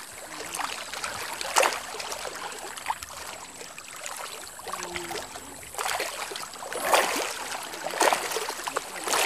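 Water lapping at the shore, with a few short splashes from small fish swarming the baited spot and breaking the surface as they scramble for the bait.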